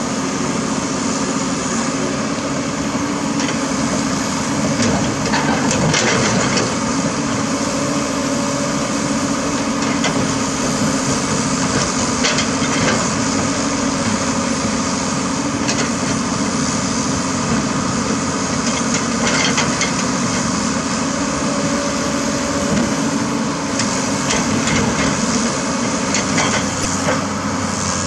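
Komatsu PC200 excavator's diesel engine running steadily under load, with scattered knocks and clatters as bucketloads of dirt and rock drop into the steel bed of a dump truck.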